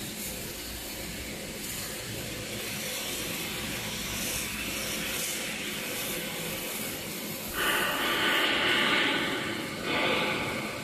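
Steady hissing background noise in a metal fabrication workshop. About two-thirds of the way through, a louder hiss sets in suddenly for about two seconds, then comes back briefly near the end.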